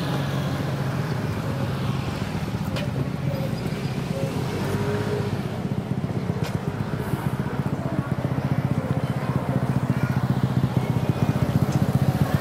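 Small motorcycle engines running along a street, with a steady low pulsing engine note; it gets louder and choppier near the end as a motorcycle passes close by.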